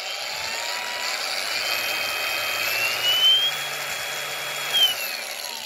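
Flex 24-volt brushless cordless angle grinder running with no load, its motor whine rising in pitch in steps as the speed setting is changed, holding, then falling away near the end.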